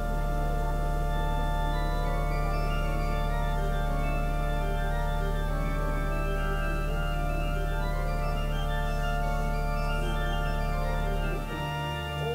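Organ music: a long held chord over a deep bass note. The bass drops out near the end while the upper notes carry on.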